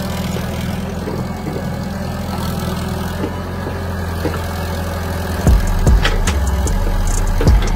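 Kato hydraulic excavator's diesel engine running steadily while it digs, with a few sharp knocks in the second half.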